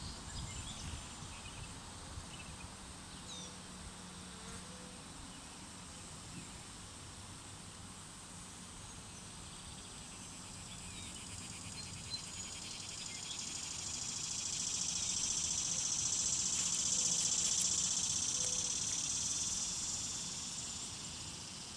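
High-pitched insect buzzing that swells over several seconds to its loudest about three-quarters of the way through, then fades near the end, over faint outdoor ambience.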